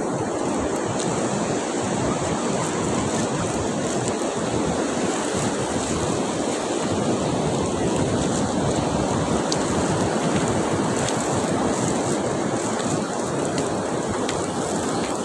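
Sea surf washing onto a beach, a steady rushing noise with no breaks.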